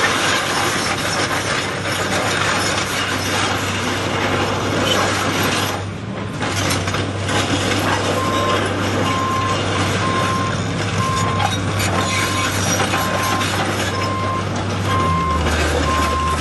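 John Deere 225C LC hydraulic excavator running, its diesel engine humming under a steady mechanical and hydraulic din. About halfway in, a travel alarm starts beeping about once a second, and the engine note drops lower near the end.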